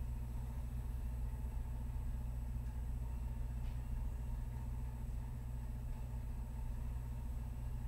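Steady low hum of room tone, with no activity.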